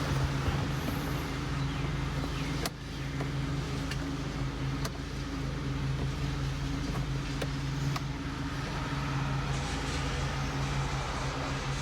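Lawn mower engine running at a steady pitch, with a few sharp clicks over it.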